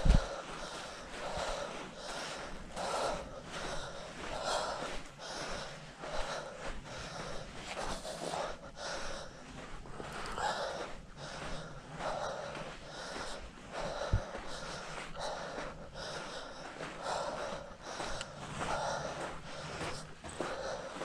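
A person breathing hard and rhythmically while hiking, about one breath every second and a half. There is a short knock at the start and another about 14 seconds in.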